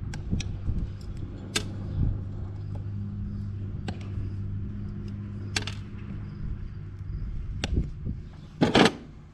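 A vehicle engine running steadily, with scattered sharp clicks and knocks over it and a short, loud rattle near the end.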